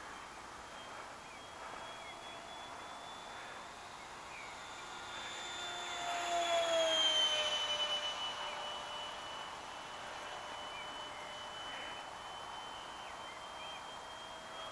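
Electric ducted fan (Lander 68 mm EDF) of a radio-controlled English Electric Lightning model whining in flight. It grows louder as the jet passes close about seven seconds in, its pitch falling as it goes by, then settles to a steady, fainter whine.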